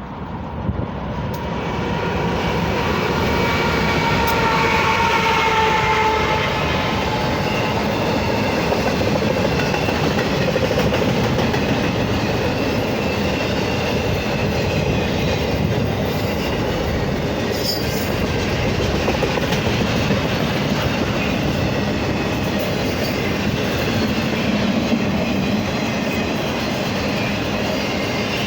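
BNSF freight train passing close. A locomotive horn sounds for about the first six seconds as a chord of several tones, dropping slightly in pitch as it goes by. After that comes the steady rolling noise of the double-stack intermodal cars on the rails.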